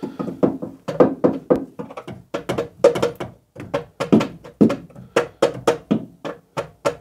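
Rapid light hammer taps on an aluminium timing chain cover, about three to four a second, knocking it back onto its locating dowels on the engine block after it sat too far forward.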